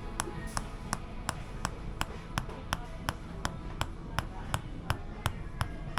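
Tok sen wooden mallet tapping a wooden wedge along the back in an even rhythm, about three sharp taps a second.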